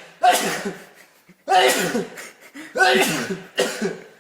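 A person's run of explosive vocal bursts, the coughs or sneezes of a fit, four in quick succession about a second apart, each starting suddenly and fading.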